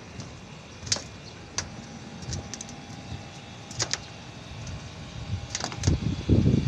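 Scattered light clicks and knocks, with a cluster of heavier thumps about six seconds in, from a person moving about on a corrugated sheet-metal roof.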